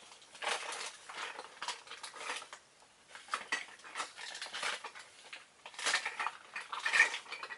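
Rummaging: a steady run of small clicks, clatters and rustles as hard objects are moved about while someone searches for a yo-yo.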